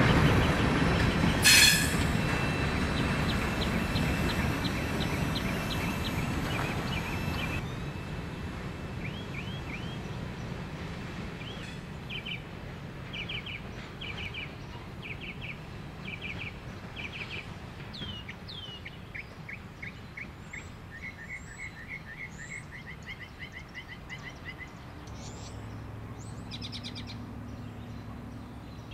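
A freight train's cars of covered hoppers, tank cars and boxcars rumble past on their wheels, with a sharp clank about a second and a half in and a thin high wheel squeal for the next several seconds. The rumble fades as the train moves away, and birds chirp and trill again and again over it.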